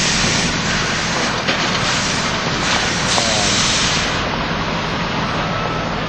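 Steady din of a steam-powered sawmill's machinery, with a loud hiss that drops away about four seconds in.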